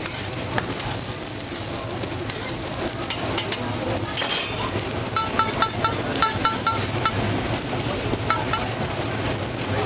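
Hotteok (Korean sweet pancakes) frying in oil on a flat steel griddle, a steady sizzle. About five to seven seconds in, a quick run of short pitched ticks sounds, about four a second.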